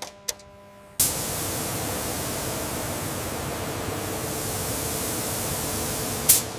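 Paint spray gun hissing steadily as it atomises paint, starting abruptly about a second in, with a short louder burst near the end. Two faint clicks come before the hiss starts.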